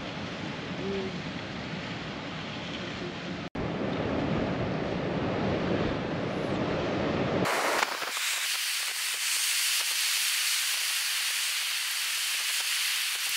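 Steady rushing wind noise on the microphone. It drops out for an instant about three and a half seconds in, and about halfway through it turns abruptly to a thinner, higher hiss with the low rumble gone.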